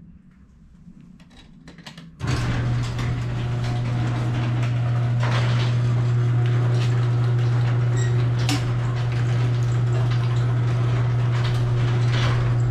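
Garage door opener motor starting about two seconds in and running with a steady low hum while the sectional door rolls down its tracks with rattles and clicks.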